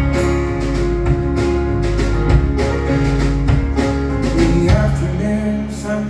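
Live acoustic guitar strummed in an instrumental break between sung verses, with steady low notes underneath.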